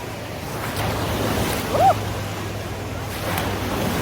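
Steady wash of pool water and waves, with one short high-pitched shout a little under two seconds in.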